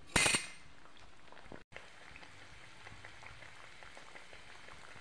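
Samosas deep-frying in hot oil. A loud burst of sizzling at the very start as a samosa is slid into the oil, then steady bubbling and sizzling with small crackles.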